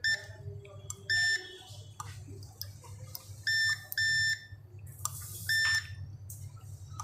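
Digital multimeter's continuity beeper giving five short, identical beeps as its probes touch points on a phone's circuit board, each beep marking a low-resistance contact. A low hum runs underneath, with a short hiss just before the last beep.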